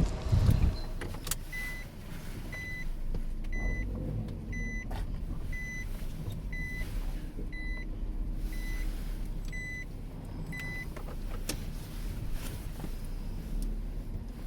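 An electronic beeper sounding ten short, even beeps about once a second, then stopping, over a steady low rumble.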